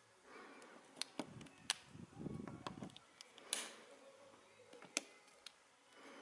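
A handful of sharp clicks and taps among soft rustling handling noise.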